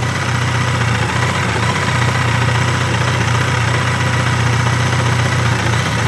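BMW K1100 inline-four engine idling warm, heard close up at its Bosch alternator: a steady hum with the engine's usual clatter. There are no clunks, so the alternator runs quietly on its new bearings.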